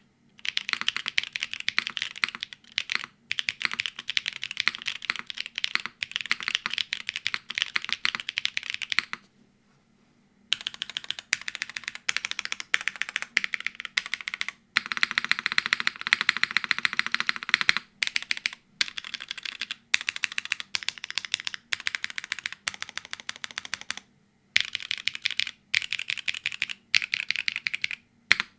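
Fast typing on a Neo75 CU mechanical keyboard with Holy Panda OG tactile switches, an aluminium plate, GMK keycaps, gasket mount and no foam: dense runs of keystroke clacks with short pauses, the longest about nine seconds in.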